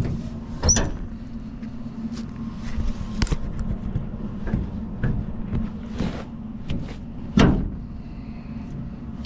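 Metal clanks and knocks from the door and smoke lever of a Heatmaster G7000 outdoor wood furnace being worked, the lever sticking, with two loud knocks about a second in and near the end. Under them the furnace's draft fan hums steadily; it is still running because the water has not yet reached 180 degrees.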